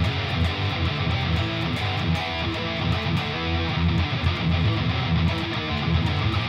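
Distorted electric guitar playing a fast riff of power chords and single notes, picked in a steady driving rhythm.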